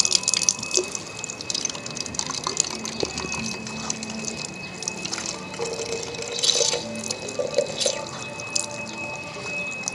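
Water running from an outdoor spigot into a small plastic sprayer bottle, splashing and trickling steadily as the bottle fills.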